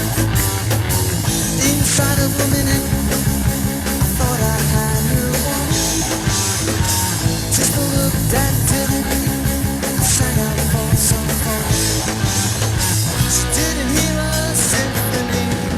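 Late-1970s rock band recording: electric guitar, bass and drums playing together at a steady, driving beat, with the drums and bass coming in right at the start to join the guitar.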